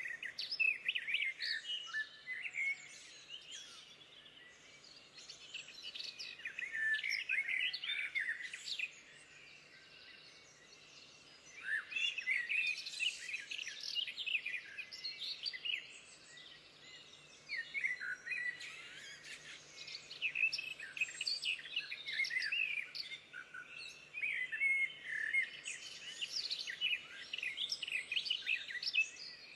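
Small birds singing and chirping, several overlapping at once, in busy bursts with short lulls between them.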